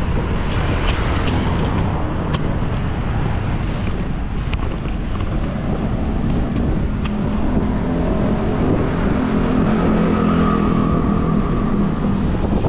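Wind rushing over the microphone and road noise while riding a bicycle along a street. From about seven seconds in, a motor vehicle's engine hum joins in and grows slightly louder.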